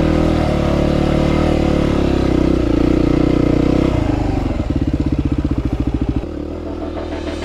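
Single-cylinder dual-sport motorcycle engine running steadily, then about four seconds in it turns to a low, even putting for a second or two before dropping quieter.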